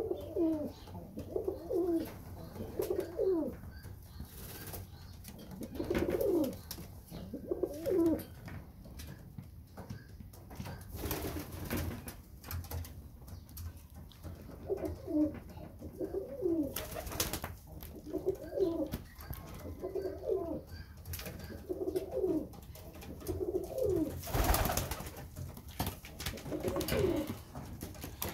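Domestic pigeons cooing over and over, in clusters of two or three calls that fall and rise in pitch, with short gaps between. A few brief bursts of noise cut in, the longest about 24 seconds in.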